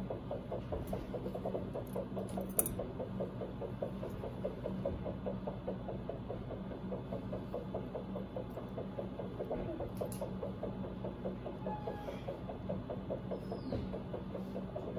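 Fast, even pulsing at about six beats a second over a steady low electrical hum from equipment, with a couple of faint clicks.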